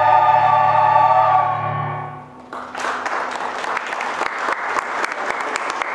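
A mixed choir holds a final sustained chord that fades out about two seconds in. Audience applause breaks out half a second later and carries on.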